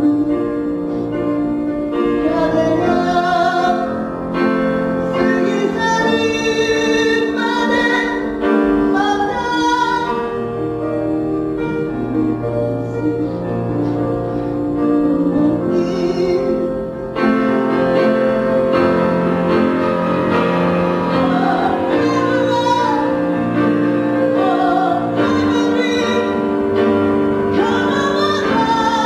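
Music with a singing voice over sustained, held accompaniment.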